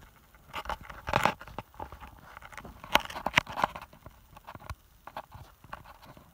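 Irregular clicks, scrapes and rustles of a plastic toy tractor's front loader and cardboard-tube bales being handled. The loudest clatter comes about a second in and again around three seconds in.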